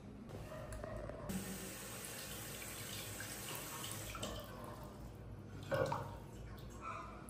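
Bathroom tap running into a glass cup for about three seconds, starting about a second in. A short knock follows near the end.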